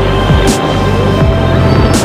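Background music with a steady beat: deep bass-drum hits about twice a second, each dropping in pitch, under held tones, with a sharp cymbal-like hit about every second and a half.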